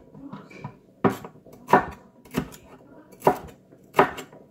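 Cleaver chopping yellow bell pepper on a wooden cutting board: five sharp knocks of the blade striking the board in an even rhythm, starting about a second in.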